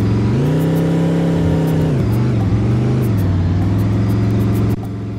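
Bus engine running, its pitch rising, holding, then falling, rising and falling again as the throttle changes, before settling steady. The loudness drops suddenly near the end.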